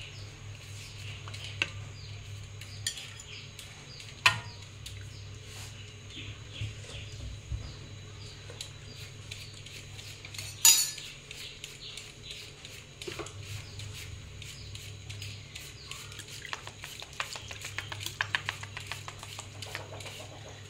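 Metal spatula clinking against an aluminium wok of simmering gravy, with light ticks throughout. There is a sharp clink about four seconds in and a louder one about ten and a half seconds in, then a quick run of light clicks near the end, over a steady low hum.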